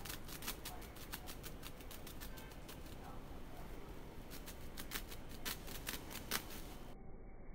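Rustling and irregular sharp clicks from human-hair lace wigs being shaken and handled.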